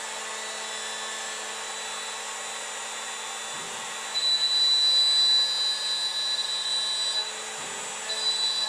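CNC milling spindle at about 7,500 RPM with a 1/4-inch carbide roughing end mill, surfacing an aluminum block with a steady whine. About four seconds in, a loud high squeal of chatter vibration sets in for about three seconds, eases, and comes back near the end. The machinist puts the squealing vibration down to a dull cutter.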